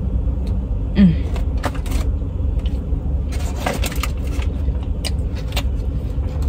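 Low steady rumble of a car engine idling, with scattered clicks and rustles of eating and handling food containers. A brief hum about a second in.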